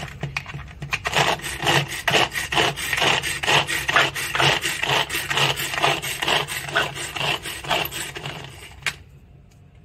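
Manual food chopper being worked over and over, its blades whirring and rasping through onions and green chillies inside a plastic-lidded bowl, about three strokes a second. The strokes stop about a second before the end, once the onions are finely chopped.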